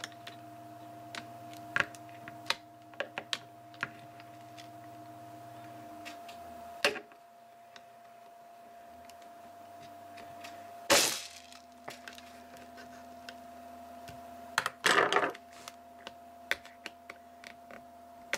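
Scattered sharp plastic clicks and snaps as a laptop's plastic screen bezel is worked loose from the display, with two louder cracking bursts, one a little past the middle and one near the end.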